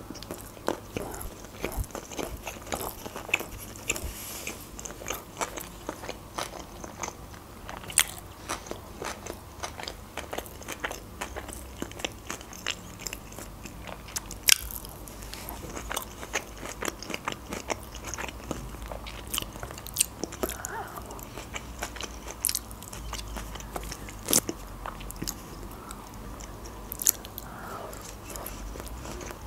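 Close-miked chewing of sushi rolls, with many short, irregular clicks and crackles of biting and crunching.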